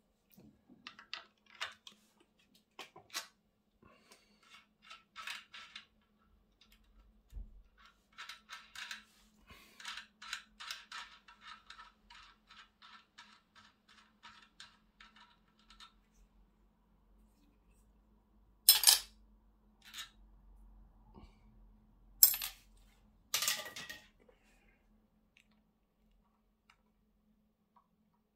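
Small metal parts of a Shimano Alfine 11-speed internal gear hub clicking and clinking as its axle assembly is taken apart by hand: scattered ticks, then a run of rapid ticking, then three sharp metallic clacks later on.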